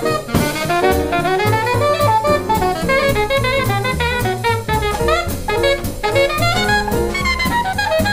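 Alto saxophone soloing in quick runs of notes over a jazz rhythm section of piano, upright bass and drums with cymbals.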